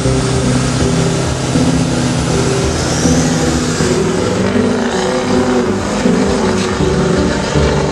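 Full-size pickup truck's engine running hard as it launches down a drag strip, mixed with background music.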